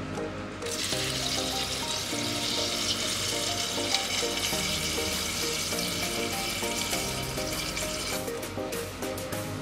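Water poured in a steady stream into a metal cooking pot of dry fusilli pasta, splashing continuously from just under a second in until it stops about eight seconds in. Soft background music runs underneath.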